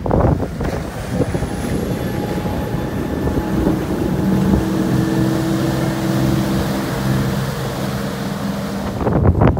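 Harbour shuttle boat's engine running with a steady hum that comes in a few seconds in, over wind noise and rushing water.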